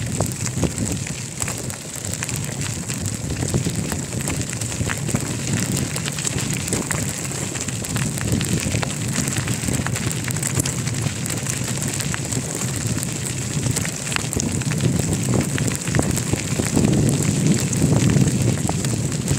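Wind buffeting the microphone of a bicycle riding downhill, with a dense crackling rattle over a steady low rush; it gets louder near the end.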